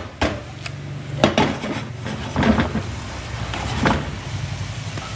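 A utensil clinking and knocking against a frying pan: a handful of sharp, irregularly spaced clinks over a low steady hum.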